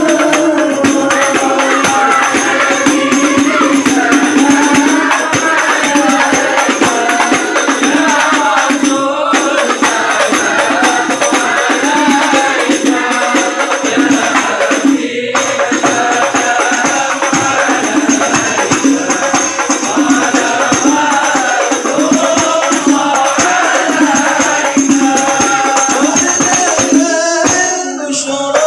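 A group singing a devotional Arabic song in unison, accompanied by frame drums with jingles (rebana/hadrah) keeping a steady beat.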